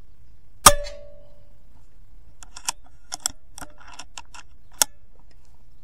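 A single shot from a .22 DAR Gen III PCP air rifle about a second in: a sharp crack with a short ringing tail. Over the next few seconds comes a run of about nine lighter sharp clicks and knocks.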